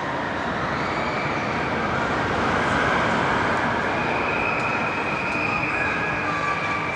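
Carousel ride turning, heard from on board as a steady rumbling din that swells a little midway, with faint background voices.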